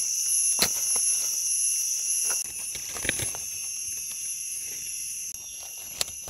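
Steady chorus of forest insects, several high, even tones at once, with one part of it dropping away about two and a half seconds in. Over it come a few short scrapes and clicks as a knife scrapes soil from a mushroom stem among dry leaves.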